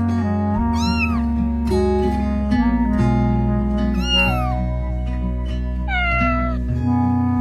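A cat meowing three times, about a second in, about four seconds in and near six seconds, the last call falling in pitch, over background music of steady held chords.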